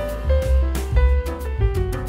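Jazzy background music: a piano melody over bass and a drum beat.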